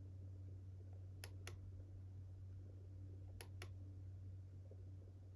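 Two pairs of faint, sharp clicks about two seconds apart, over a steady low electrical hum: a computer mouse clicking through slideshow pictures.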